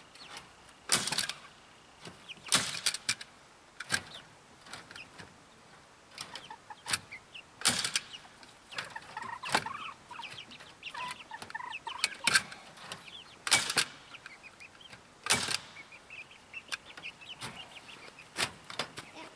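Staple gun firing staples through chicken wire into a wooden frame: about a dozen sharp snaps at irregular intervals, one to three seconds apart. Chickens cluck softly between the shots.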